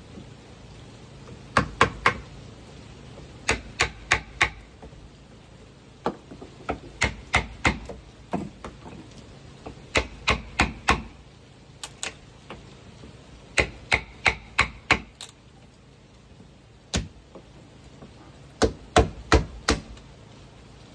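Hand-tool blows on wood, struck in quick bursts of three or four with short pauses between.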